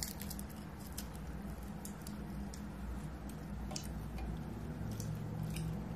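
Close mouth sounds of someone eating a baked chicken wing: scattered small wet smacks and clicks of chewing and pulling meat off the bone.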